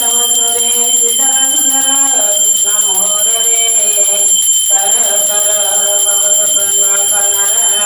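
A puja bell ringing continuously in high, steady tones over a devotional melody whose held notes change every second or two, accompanying an aarti with a lamp.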